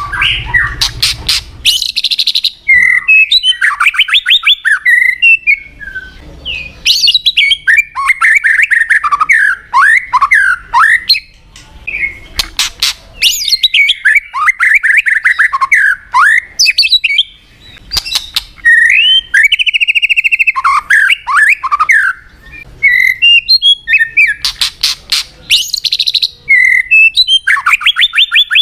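White-rumped shama singing: a long run of varied phrases of fast trills, sharp ticking notes and clear whistles that glide up and down, broken by short pauses every few seconds.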